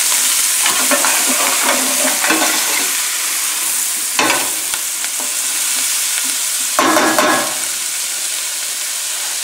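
Chopped onions, celery and carrots sizzling in a frying pan on moderate heat, with a steady hiss. A few short scraping strokes come about a second in, around four seconds and again around seven seconds.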